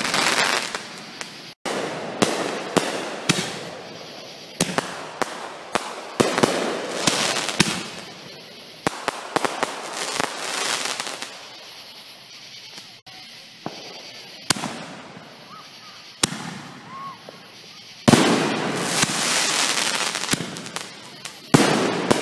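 Aerial fireworks going off: repeated sharp bangs of shells bursting, each followed by a fading crackle. A louder, denser volley comes about three-quarters of the way in.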